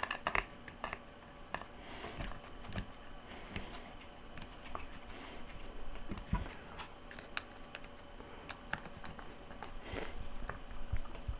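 Precision screwdriver snugging down the screws that mount a Ninja food chopper's motor: faint, irregular light clicks and ticks of the driver and screws against the plastic housing.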